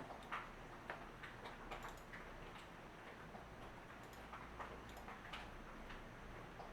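Faint, light clicks at an uneven pace of one or two a second over quiet room tone.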